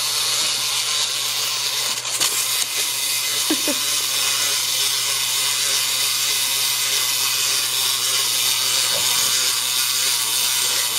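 Wind-up toy chicken's clockwork motor whirring steadily as the treat-dispensing toy walks on a wooden floor, starting as it is set down.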